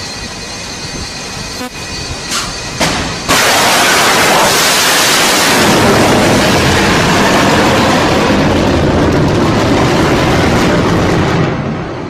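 BrahMos supersonic cruise missile launching, its solid-propellant booster firing: a sudden loud rush of noise starts about three seconds in, holds steady for about eight seconds and drops away near the end. Before it, a steady background rumble with a few sharp clicks.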